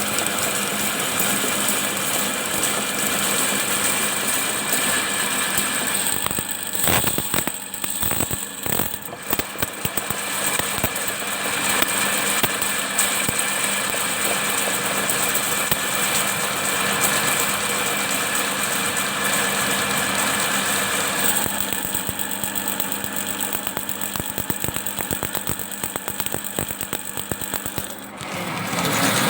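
Electric drain-cleaning machine running, its motor spinning a spiral steel cable into a clogged drain, with a high whine over the steady drone. About a third of the way in, it cuts out and starts again several times in quick succession, then runs steadily.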